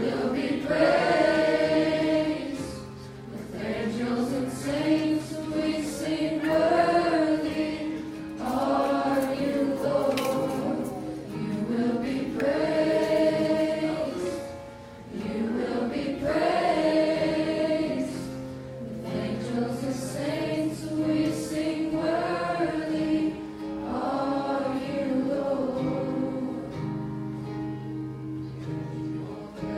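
Church worship song: a group of voices singing together in long phrases over sustained instrumental chords.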